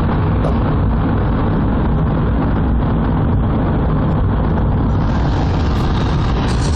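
Steady road and engine noise heard from inside a car moving at highway speed, a dense rumble of tyres on pavement. About five seconds in, a brighter rushing hiss joins it.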